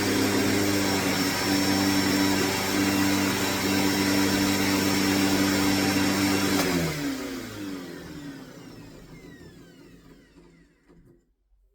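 Hoover Deluxe Elite Rewind upright vacuum cleaner motor running steadily, then switched off about two-thirds of the way in and spinning down with a falling whine until it goes quiet.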